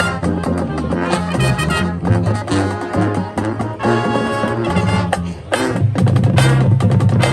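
High school marching band playing: brass chords with trumpets and trombones over a steady beat of drums.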